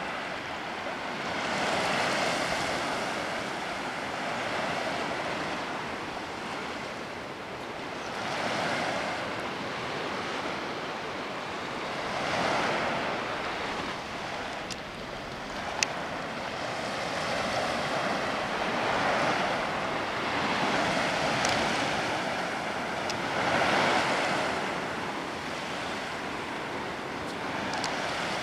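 Small sea waves lapping and washing on a sandy shore, the wash swelling and easing every four to five seconds.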